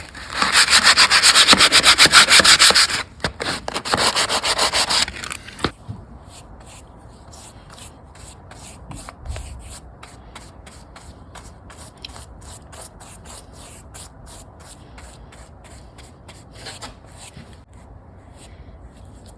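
Plug-in oscillating multi-tool with its blade cutting a groove into wood, in two loud passes of about three and two seconds. Then quieter rubbing strokes follow, several a second, until near the end.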